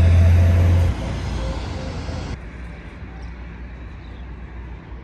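Road traffic: a motor vehicle running by with a loud low rumble that falls away about a second in, then quieter street ambience.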